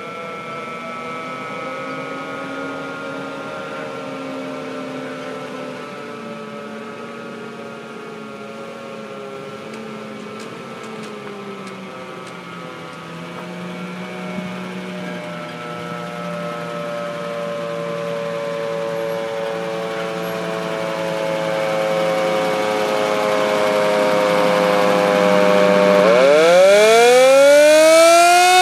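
The original mechanical siren of a 1951 Ford Big Job fire truck, slowly winding down with its pitch falling for most of the time. About 26 seconds in it is spun up again and rises sharply to a loud, high wail near the end.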